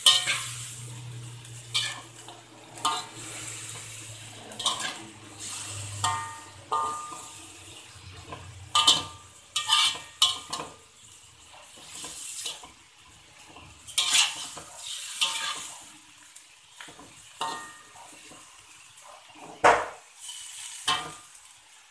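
Metal spatula scraping and clanking against a wok while chicken pieces are stir-fried, in irregular strokes about once a second, with frying sizzle underneath.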